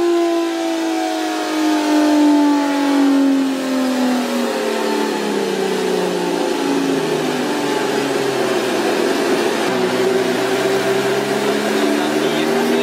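Kawasaki KZ1300's liquid-cooled inline-six engine running in gear on a chassis dyno. The note falls steadily for about eight seconds as the revs wind down, then rises again near the end as the throttle opens.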